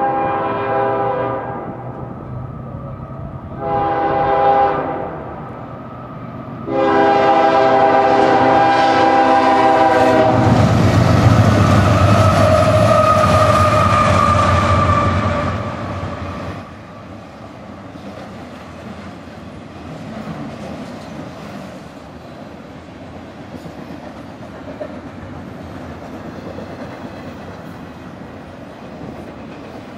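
A diesel freight locomotive's multi-note horn blows for the grade crossing: the end of one blast, a short blast, then a long one. Then the locomotives pass loudly for about six seconds, and the steadier rumble and clickety-clack of trailer and container cars rolling by follows.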